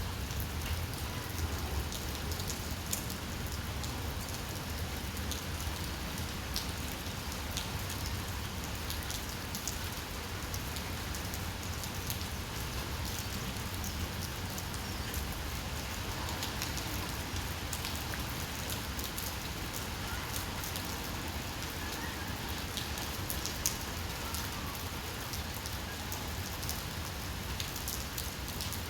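Steady rain falling, a constant hiss with many scattered individual drops ticking on surfaces and a low rumble underneath.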